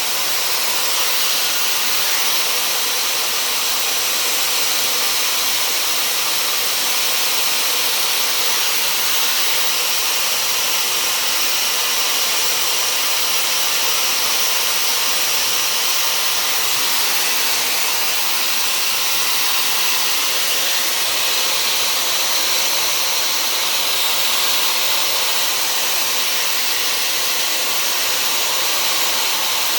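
Dyson hair dryer with a diffuser attachment running steadily, blowing an even rush of air.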